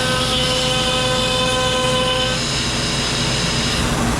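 CNC router spindle running at about 15,300 rpm while routing ash, a steady whine over a constant rush of cutting noise. The whine fades about two and a half seconds in while the noise carries on.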